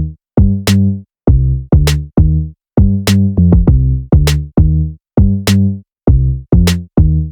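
Background electronic music with a drum-machine beat and a punchy bass.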